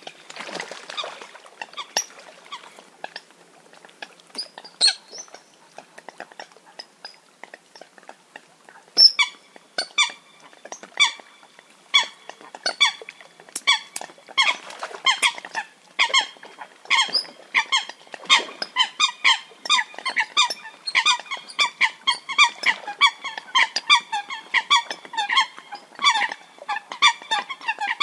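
Eurasian coots giving their fight call: scattered clicks and a few short notes at first, then from about nine seconds a rapid series of short, sharp, high calls, two or three a second.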